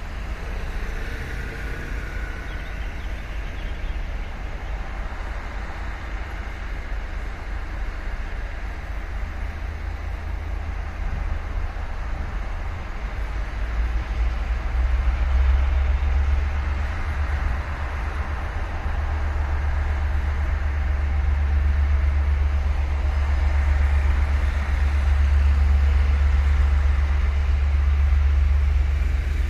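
Train moving slowly in the distance across the station yard, a low rumble that grows louder about fifteen seconds in.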